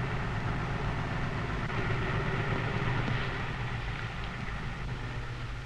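Sherman tank's engine running steadily as the tank creeps forward, a low hum that slowly fades.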